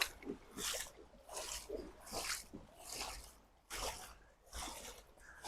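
Footsteps wading through a shallow river, a splash or slosh with each stride, roughly every three-quarters of a second.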